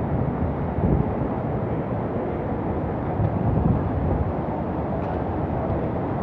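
Hurricane wind buffeting the microphone: a steady low rumble that swells in gusts about a second in and again around three to four seconds.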